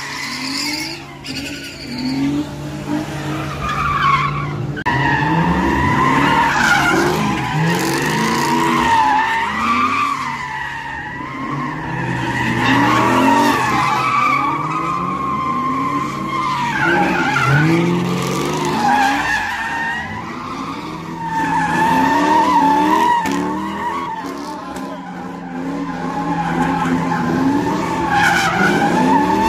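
Cars spinning donuts, tires squealing in a steady, wavering screech while an engine revs up again and again, its pitch rising with each push of the throttle.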